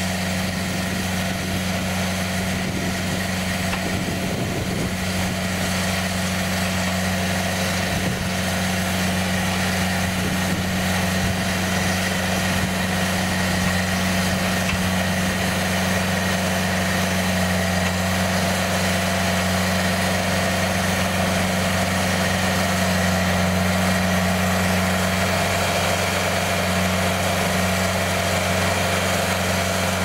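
Engine of a Cook's AC-36 hydraulic bandsaw mill running steadily, a constant low hum that grows slightly louder over the stretch.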